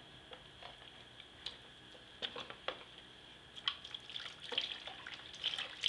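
Water splashing and dripping in a plastic baby bath tub as water is poured in from a mug. Scattered small splashes start about two seconds in and grow busier in the second half.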